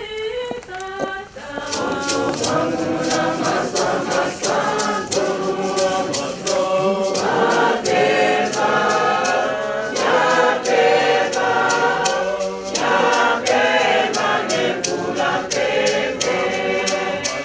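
A congregation singing a hymn together in chorus. From about two seconds in, a steady beat of sharp percussive strikes runs under the singing.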